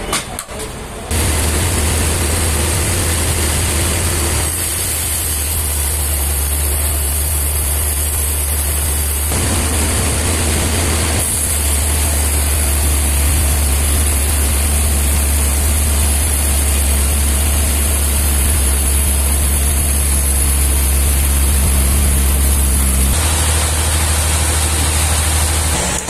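Large band sawmill running and sawing a wide trembesi (rain tree) slab: a steady low drive hum under a constant hiss of the blade in the wood. The tone shifts abruptly a few times.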